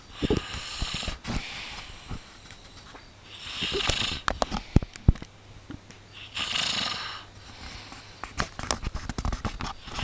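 A sleeping person snoring: a noisy breath swells about every three seconds, each one broken by a rough, fluttering rattle.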